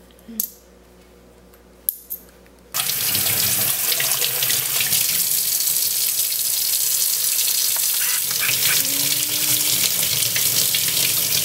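A few soft clicks, then a kitchen tap running steadily into a stainless steel sink, the water splashing over cupped hands rinsing pennies. The water starts abruptly about three seconds in.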